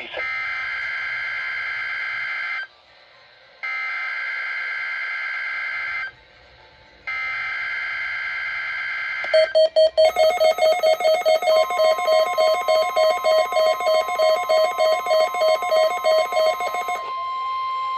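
NOAA Weather Radio SAME data header: three raspy two-tone digital bursts, each about two and a half seconds, with short gaps. About nine seconds in, a weather-alert receiver triggered by the header starts a fast pulsing beep alarm, a steady warning tone joins about two seconds later, and near the end the beeping gives way to a warbling alarm.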